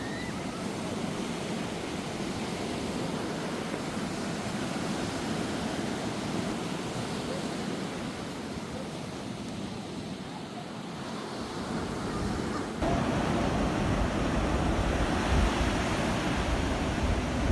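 Sea waves washing onto a beach as a steady hiss of surf. About thirteen seconds in, it turns abruptly louder with a deeper rumble.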